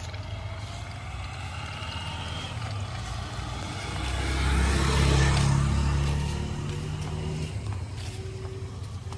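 A motorcycle approaching and passing close by, its engine loudest about five seconds in and then fading, over a steady low hum.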